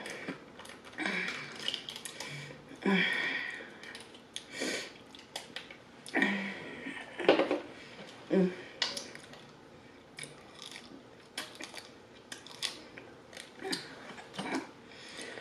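Fingers peeling the lid off a small plastic dipping-sauce cup and handling the packaging, close to the microphone: a string of sharp clicks and crinkles, with a few short mouth or throat sounds among them.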